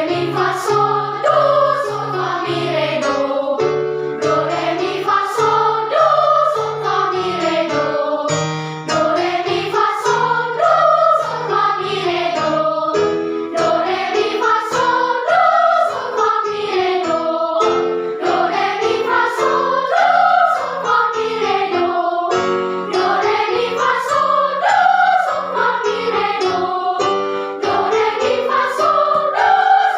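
A children's choir singing a song, with an instrument playing held low notes underneath that change every couple of seconds.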